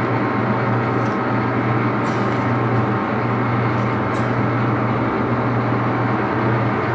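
Early Axelson heavy-duty lathe with a geared headstock running steadily under power: a loud, even low hum under dense mechanical noise, with a few faint ticks.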